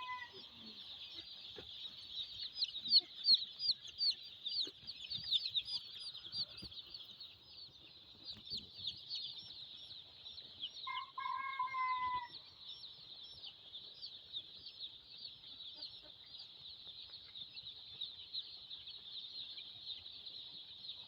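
A brood of five-day-old White Leghorn chicks peeping: a continuous chorus of many short, high, falling cheeps. A longer, lower call cuts through about eleven seconds in.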